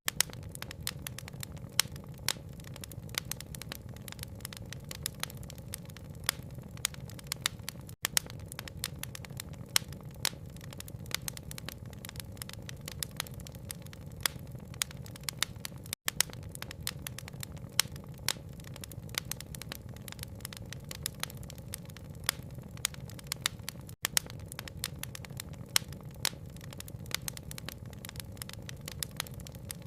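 Wood fire crackling with frequent sharp pops over a steady bed of rain noise. The sound briefly cuts out three times, about every eight seconds.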